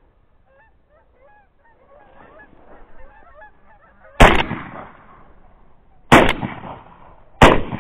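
A flock of geese honking overhead, then three blasts from a 10-gauge shotgun, about two seconds and then a second and a half apart, starting about four seconds in.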